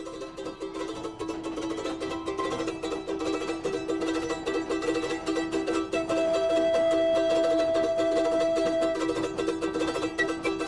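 Background music of fast-plucked strings that fades in over the first few seconds, with one long held higher note from about six to nine seconds in.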